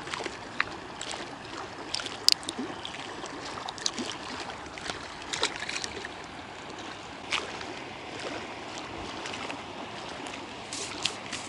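Small waves lapping and splashing against a concrete shore, a steady wash of water, with scattered small clicks from hands handling fishing tackle.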